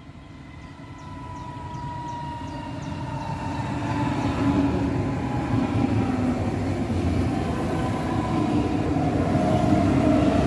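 Munich S-Bahn class 423 electric multiple unit, three units coupled, running into the station. It grows steadily louder as it comes along the platform, with rumble and rail noise and the whine of its electric traction gear falling slightly in pitch as it slows.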